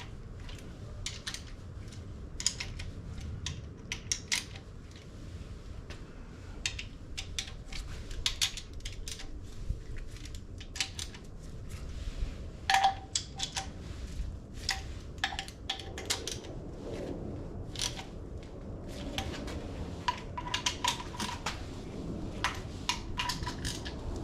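Metal hand tools clinking and tapping against each other and against engine parts: irregular sharp clicks scattered throughout, with a low rumble underneath.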